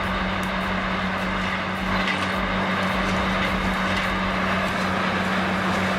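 A heavy forestry machine running steadily, a constant engine drone with one unchanging low hum under a rough mechanical noise.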